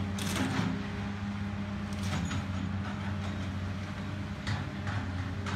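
Caterpillar hydraulic excavator's diesel engine running steadily while it tears into a brick building, with crashes and clatter of falling brick and metal debris: a loud crash just after the start, another about two seconds in, and a few more near the end.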